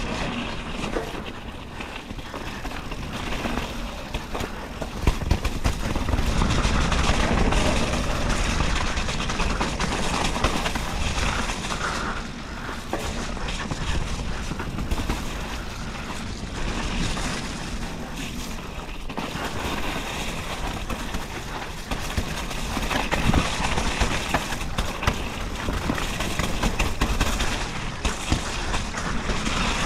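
Mountain bike riding down a slippery, muddy trail: a steady rumble of tyres on wet ground with many small knocks and rattles from the bike over bumps.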